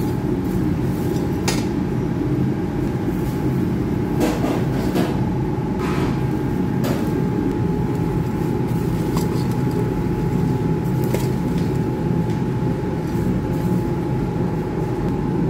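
A steady low rumble with a faint steady hum runs throughout. Over it, a slotted metal spoon stirring popped popcorn in a metal pan makes a few light clicks and scrapes.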